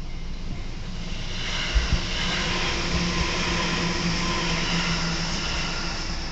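Train passing over a level crossing: the rush of its wheels and running gear swells about a second in and stays loud, with a couple of low knocks near two seconds in.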